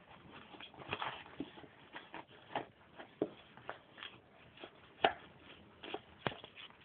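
Dog rooting in a box to get a chocolate out: faint, irregular taps, scrapes and rustles of the packaging, with one sharper knock about five seconds in.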